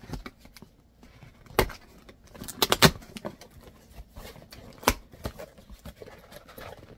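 Cardboard mailing box being cut open with scissors and its flaps pulled apart: scattered sharp clicks and crackles of scissors, tape and cardboard, the loudest in a quick cluster about three seconds in.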